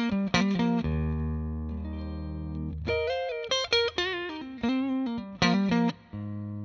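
Telecaster-style electric guitar played clean through a Carvin Vintage Series all-tube amp, with no pedals. There are quick runs of picked single notes, a low note left to ring about a second in, more quick licks, then a low note held near the end.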